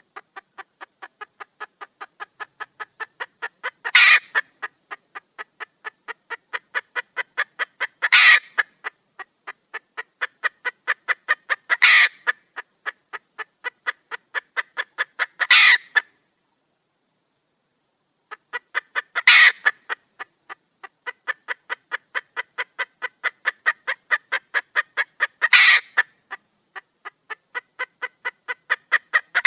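Red junglefowl hen calling for a mate: fast, even clucks, about five a second, growing louder and ending in a loud squawk, over and over every four to six seconds, with a short silence about halfway through.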